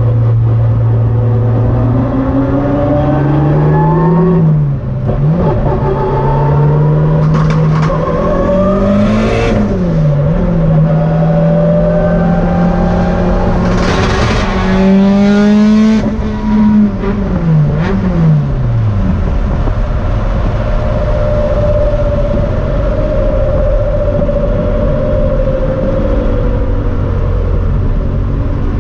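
Turbocharged four-cylinder engine and dog-box gearbox of a Toyota Celica GT-Four ST185, heard inside the stripped cabin. It pulls up through the gears with quick shifts, the gear whine rising and falling with road speed, then eases off and settles into a steady cruise.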